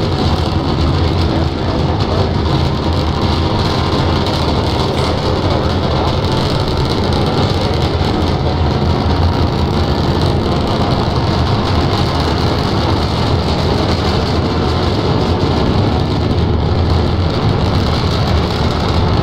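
Starship SN9's three Raptor rocket engines firing during the climb after liftoff, a loud, steady, low rumble that does not let up.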